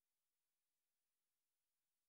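Near silence: a silent gap in the recording.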